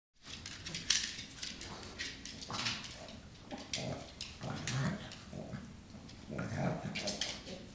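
A pug and a chihuahua play-wrestling: irregular scuffling of paws on a dog bed and wood floor, with short low dog sounds several times.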